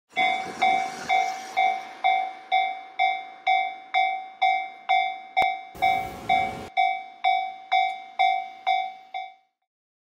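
Japanese railway level-crossing warning bell ringing steadily, about two electronic 'kan-kan' strikes a second. Each strike rings out and fades. There is a brief burst of noise about six seconds in, and the bell cuts off abruptly a little after nine seconds.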